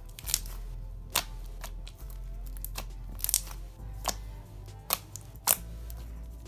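Thick clear glue-and-borax slime being squished and played with, giving sharp separate pops and clicks about once every half second to a second, over faint background music.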